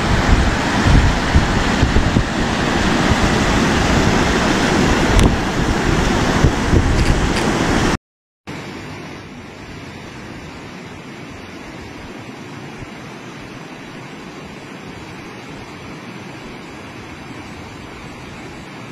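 Muddy floodwater rushing through a wadi in flash flood, loud and steady, with wind buffeting the microphone. About eight seconds in it cuts off abruptly, then a quieter, even rush of a swollen river in flood follows.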